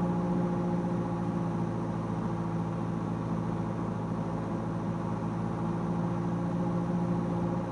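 Cessna 172S's four-cylinder Lycoming engine and propeller droning steadily, heard from inside the cockpit on short final approach.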